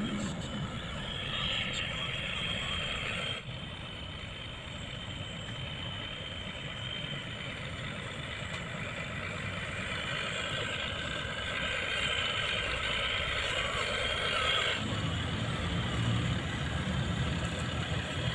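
Diesel truck engine sound from a remote-control model Hino 500 truck, running steadily. Its tone changes abruptly about three seconds in and again near the end.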